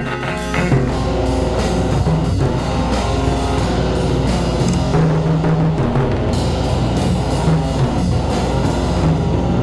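Rock music: a band with drum kit, bass and guitar playing.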